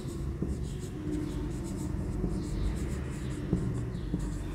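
Marker pen writing on a whiteboard: a run of short, scratchy strokes as a line of words is written out.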